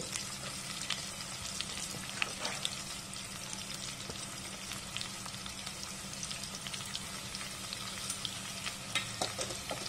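Sliced onions frying in hot oil: a steady sizzle with scattered small crackles, and a few sharper pops near the end. The onions are still raw, early in being fried to golden brown.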